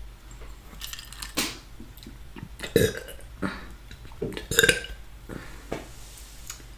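A woman burping several times in short separate burps, the loudest about three seconds and about four and a half seconds in, picked up on a close ASMR microphone.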